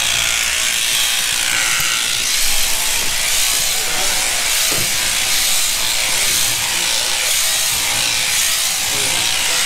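Electric sheep-shearing handpiece, driven by an overhead motor through a jointed down-tube shaft, running steadily as it cuts through a ewe's fleece.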